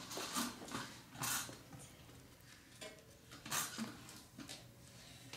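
Children whispering quietly in short breathy bursts.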